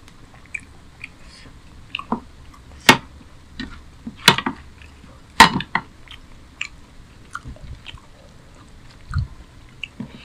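Close-miked eating of rice and chicken curry by hand: scattered wet smacks, squelches and chewing sounds, with three sharp, loud smacks about a second apart near the middle.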